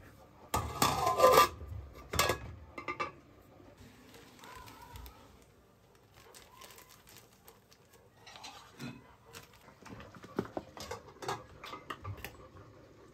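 A utensil stirring and clattering against a metal cooking pot of soup: a loud scraping burst in the first couple of seconds, then a few sharp knocks. Softer rustles and clicks of kitchen items being handled on a countertop follow.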